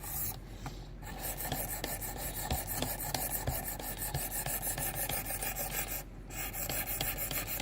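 Sharpening stone on a Work Sharp Precision Adjust guided rod stroked repeatedly along a D2 steel knife edge, wetted with dish soap and water: steady scraping of abrasive on steel that starts about a second in, breaks off briefly about six seconds in, then resumes.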